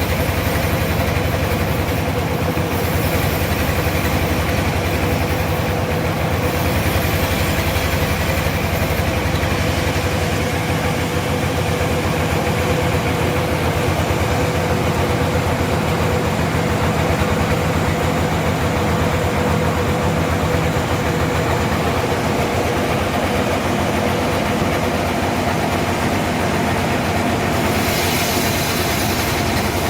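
Sawmill machinery running steadily: a continuous mechanical drone with a steady whine. A brighter hiss joins in near the end.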